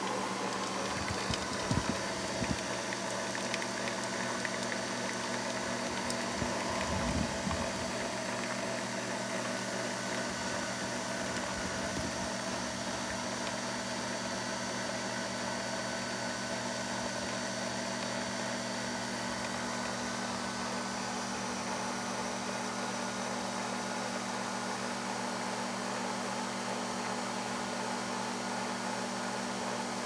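Nespresso Vertuo Plus coffee machine brewing, a steady mechanical hum from its pump and the capsule spinning as coffee pours into the mug. A couple of brief low bumps come in the first eight seconds.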